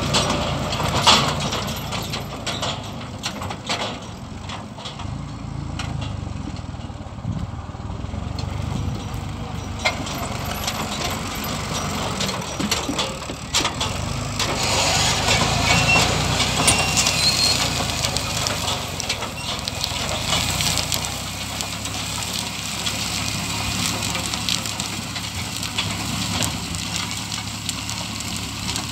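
Farm tractor diesel engine running steadily, pulling a sugar beet harvester at work, with scattered mechanical knocks.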